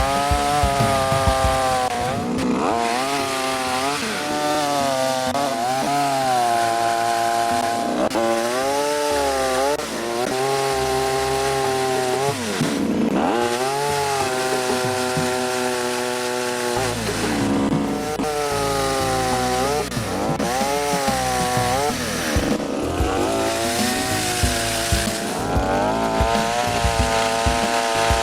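Two-stroke petrol engine of a Kiam Sherwood 5-in-1 garden multi-tool driving its long-reach pruner chainsaw head, revving up and dropping back again and again, every few seconds, as the chain is worked through branches.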